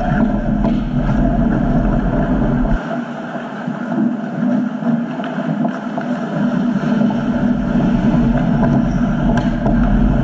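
Steady ice hockey rink noise during play, with a heavy low rumble on the microphone that drops away for a few seconds in the middle, and a few faint sharp knocks.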